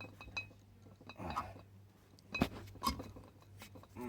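Scattered metal clicks and clanks of a hand tap being worked into a drilled bolt hole in a small-block Chevy cylinder head, about half a dozen separate strikes, over a faint low hum.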